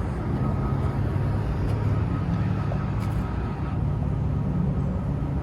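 Trane Odyssey air-conditioning condensing unit running with its access panel off: a steady low hum from the scroll compressor and condenser fan.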